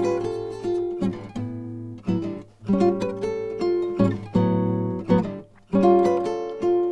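Acoustic guitar playing bossa nova chords, about six separate chord attacks each left to ring, over a steady bass note: the introduction to a song before the singing comes in.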